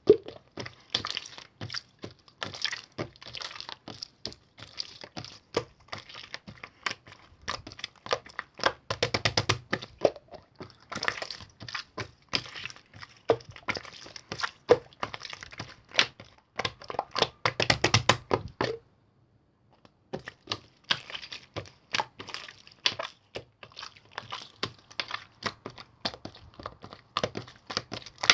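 Slime being pressed, folded and stretched by hand, giving rapid irregular clicks and crackling pops, with a pause of about a second roughly two-thirds of the way through.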